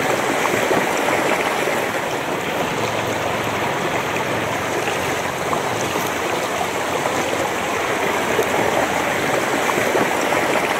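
Shallow river flowing fast over stones, a steady rush and burble of water heard from right at the water's surface.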